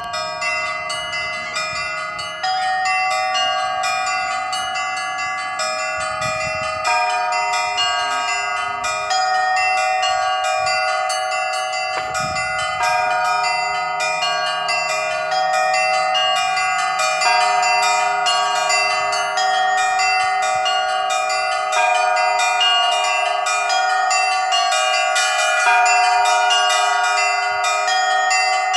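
Russian Orthodox church bells ringing a continuous peal: small high bells struck in quick succession over the ringing of larger ones. A deeper bell joins about seven seconds in.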